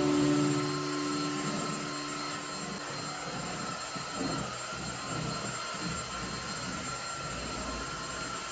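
Steady whine of an electric appliance motor with rushing air, like a vacuum cleaner or hair styler running at constant speed. Held music notes fade out under it over the first few seconds.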